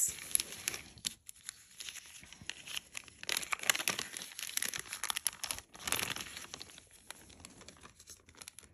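Packaging crinkling and rustling as it is handled, in a run of irregular crackles.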